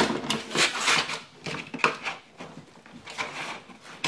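A pry tool working behind a car door trim panel, feeling for and prying at its plastic retaining clips: irregular knocks, clicks and scrapes of tool against plastic panel and door.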